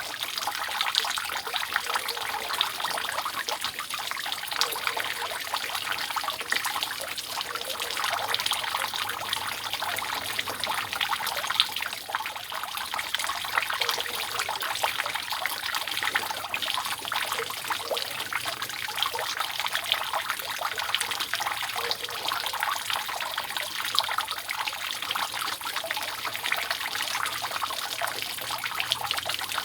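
Rainwater dripping and trickling steadily off a roof, many drops splashing without a break.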